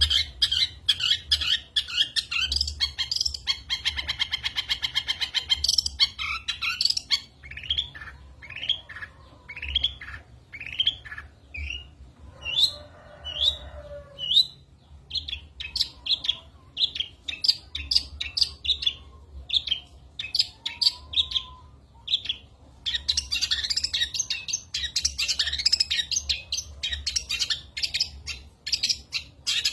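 Long-tailed shrike (cendet) singing a long, varied song packed with mimicked phrases: a fast trill, then a run of short rising whistles, a harsh call, and dense rapid chattering near the end.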